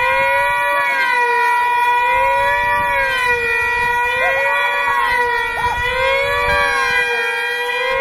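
Two-stroke control-line combat model engines screaming at full throttle. Their pitch rises and falls about once a second as the models circle the pilots on their lines.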